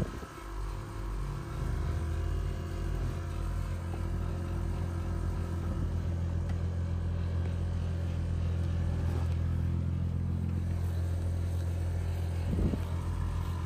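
Toyota GR Supra's turbocharged 3.0 L inline-six idling steadily, heard from inside the cabin, as a low hum that firms up about a second and a half in. A short knock comes near the end.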